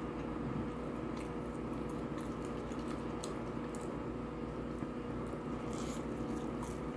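A man chewing a chicken nugget close to the microphone, with small wet mouth clicks, over a steady low background hum.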